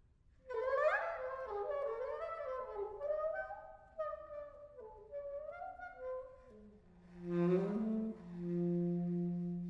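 Solo saxophone improvising: about half a second in it enters loudly with a flurry of quick, bending middle-register notes, then drops to a low note held long and fading out near the end.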